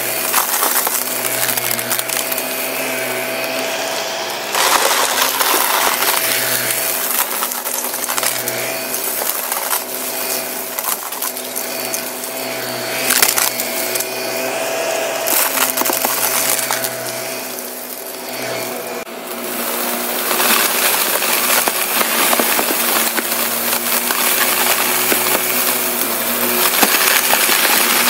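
Shark upright vacuum cleaner running with a steady hum over carpet while it sucks up star-shaped confetti and other small crunchy debris, which crackles and rattles up through the machine. The rattling gets louder in short surges as it passes over piles.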